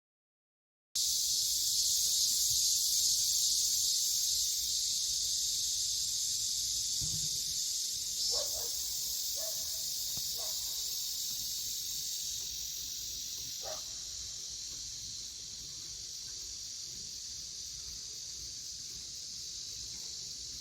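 Steady high-pitched chorus of night insects such as crickets, fading slowly, with a few brief faint calls near the middle.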